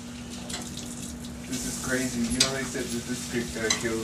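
Kitchen sounds: food sizzling in a pan on the stove, with dishes clinking and water at the sink. From about halfway a voice comes in, not in clear words, and becomes the loudest sound.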